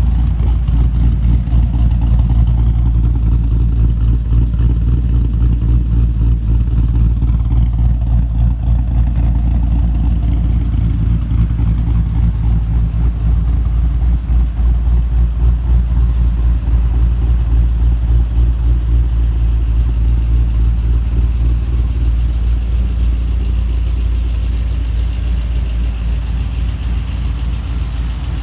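Holden Commodore SSV's V8 idling steadily with a fast, even pulse, the car fitted with a performance camshaft and extractors.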